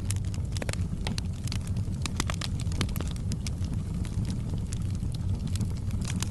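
Wood fire crackling in a fireplace, with frequent small irregular pops over a steady low rumble.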